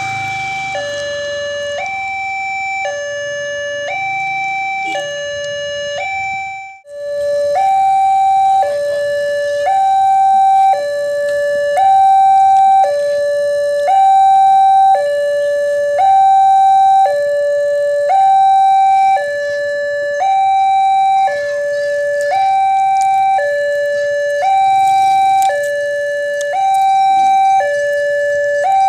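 Railway level-crossing warning alarm sounding from the horn on the crossing signal post: a loud electronic two-tone alarm alternating high and low, about a second per tone, warning that a train is approaching. It cuts off briefly about seven seconds in and resumes louder.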